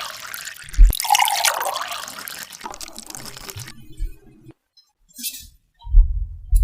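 Liquid pouring and splashing in two stretches, broken by a sharp thump about a second in. Short low thuds come near the end.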